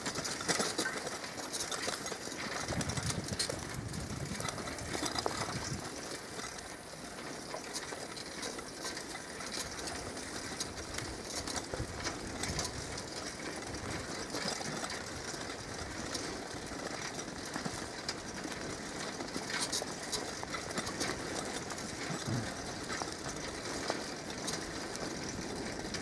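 Forest ambience in a pine wood: a steady rustling hiss with many small crackles and ticks throughout.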